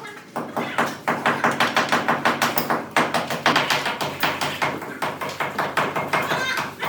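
Rapid, even tapping or knocking, about five sharp strikes a second, starting about a second in.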